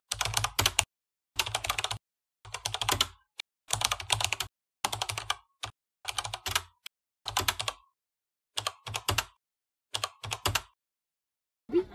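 Rapid keyboard-like typing clicks in about ten short bursts, each under a second, with dead silence between them, as from an edited typing sound effect.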